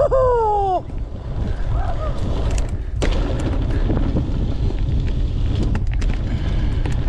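Steady low rumble of wind buffeting the microphone on a moving mountain bike. A brief shout falling in pitch comes right at the start, and a sharp knock about three seconds in.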